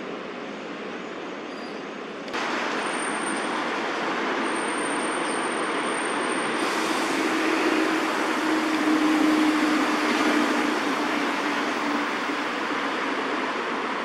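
Steady road-traffic noise, stepping up louder about two seconds in, with the low hum of a passing vehicle swelling and fading in the middle.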